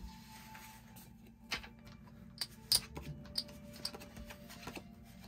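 Casino chips clicking against each other as they are handled on the table: a string of sharp, uneven clicks, the loudest near the middle, over faint background music.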